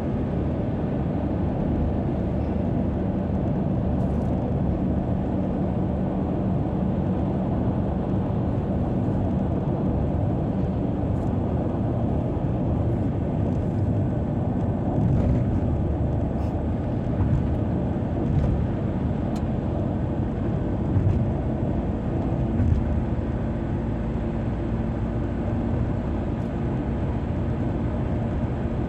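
Car driving steadily on a highway: constant engine and tyre-on-road noise with a low hum, and a few faint ticks.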